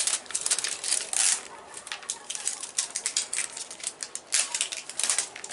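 Plastic wrapping on a toy surprise egg crinkling and crackling as it is peeled and torn off by hand, a continuous rustle dotted with sharp snaps.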